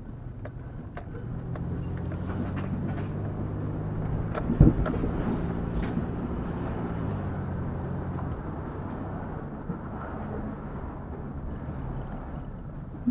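Vehicle engine running with road noise, its steady hum building about a second and a half in, with light rattles throughout and a sharp bump about four and a half seconds in.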